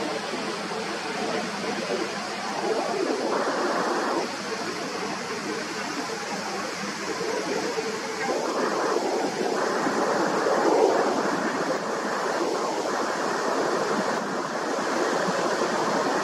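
Steady rushing roar of an Airbus A321neo's jet engines as the airliner flies over low on approach with its gear down. The roar wavers and swells slightly about ten seconds in.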